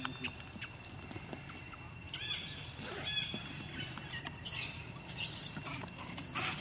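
Wild birds chirping: short, high, quick up-and-down notes scattered through, over a steady low outdoor hum and a thin steady high tone.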